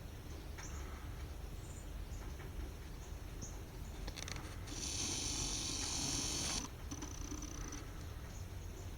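Small birds at a feeder giving scattered short, high chirps, with a louder hissy, buzzing sound lasting about two seconds midway and a brief high whistle just after it, over a steady low background rumble.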